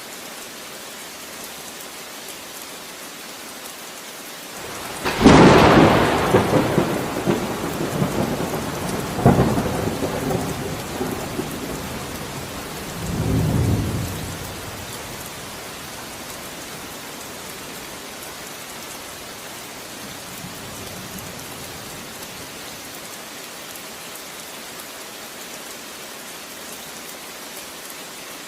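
Steady rain falling, broken about five seconds in by a clap of thunder: a sharp crack, then a long rolling rumble with a second crack a few seconds later and a last low rumble, fading back into the rain after about ten seconds.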